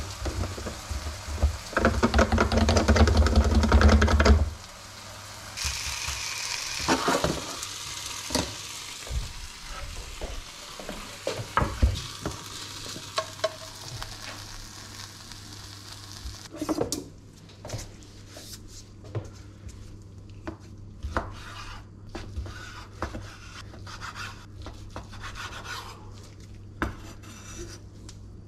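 A hand-held grinder is worked loudly for a couple of seconds near the start. Oil then sizzles in a frying pan while a browned chicken breast is lifted out with a spatula. After that, a chef's knife taps and clicks on a wooden cutting board as the cooked chicken is sliced.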